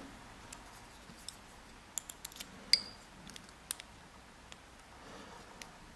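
Faint, scattered metal clicks and scrapes of a tool prying at the retaining clip on the back of a Yale Platinum lock cylinder, with one sharper metallic ping with a brief ring near the middle.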